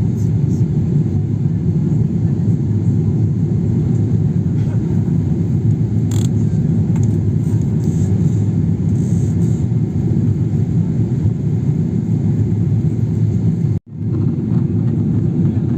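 Airliner cabin noise: a steady low rumble of the jet engines and airflow heard from inside the passenger cabin. It cuts out for an instant near the end.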